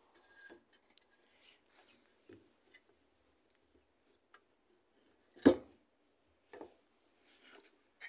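Rubber drive belt being worked by hand onto a washing machine's transmission and motor pulleys: faint rubbing and clicking, with a sharp knock about five and a half seconds in and a smaller one about a second later.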